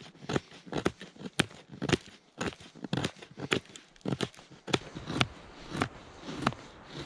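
A fixed-blade knife shaving curls of wood off a split stick to make fire-lighting tinder. Short, sharp scraping cuts come about twice a second.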